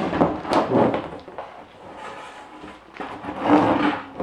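Long flexible plastic toboggan base sheet being lifted, bent and flipped over, scraping and flapping against a plywood floor, in two rough bursts: one at the start and a louder one about three seconds in.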